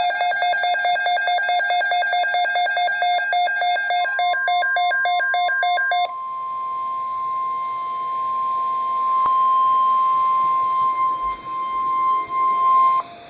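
Weather radio alert: about six seconds of rapid, pulsing electronic alarm beeps from the receiver, then one steady high tone, the NOAA Weather Radio warning alarm tone, lasting about seven seconds and cutting off abruptly. The tones announce an incoming severe weather alert.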